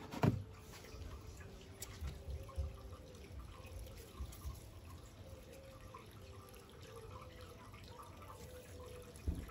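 Faint dripping water, with a few soft clicks.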